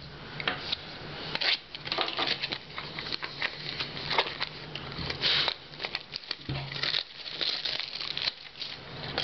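Foil wrapper of a trading-card pack crinkling and tearing, with cards being handled and set down in quick, irregular rustles and clicks.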